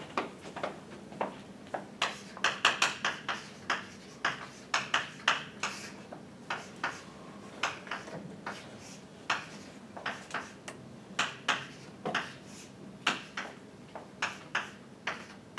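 Chalk writing on a chalkboard: a run of sharp, irregular taps and short scratchy strokes as line diagrams are drawn.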